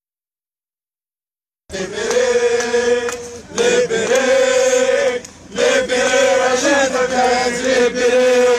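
Dead silence for about the first second and a half, then a marching crowd of men chanting slogans in unison, in rhythmic sung phrases with brief breaths between them.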